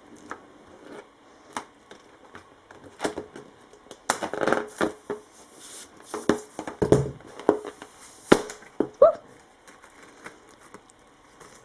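Hands tearing open a surprise balloon to get at the toys inside: irregular rustling, crinkling and tearing with scattered sharp snaps, the loudest about eight seconds in, followed by a brief squeak.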